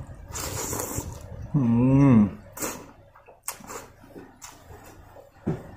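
A man slurping a mouthful of rice noodles, then a short wavering "mmm" hum about one and a half seconds in, the loudest sound. Wet chewing with several sharp crunchy clicks follows.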